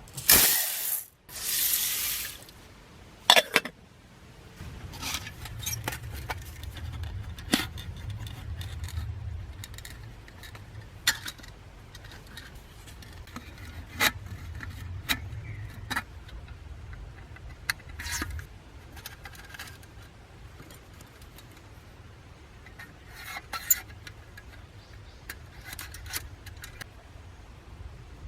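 Scattered light metallic clinks and scrapes of small metal pieces being handled, after a loud rushing noise in the first two seconds.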